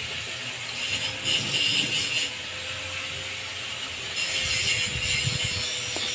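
Leather pump cup being twisted onto the threaded stem of a deep-well ejector by hand, grating and scraping in two spells of a second or so each.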